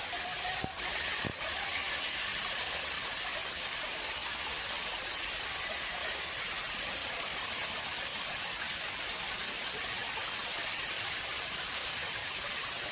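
Water flowing steadily into an artificial pond: a continuous even rush of running water. Two short clicks in the first second and a half.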